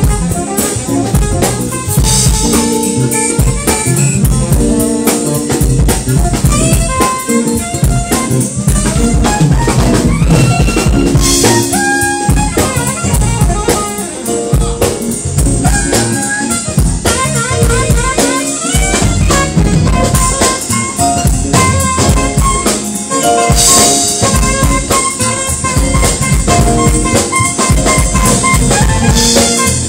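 Live jazz band playing: a drum kit, electric bass, guitar and keyboard, with a saxophone playing a melody over them.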